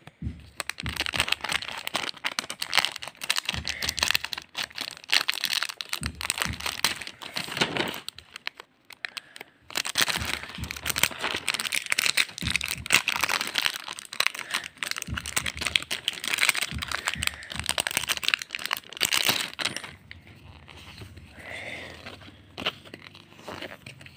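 Foil booster-pack wrapper crinkling as a pack of trading cards is torn open by hand, a dense, fast crackle with a short pause about eight seconds in. It goes quieter for the last few seconds.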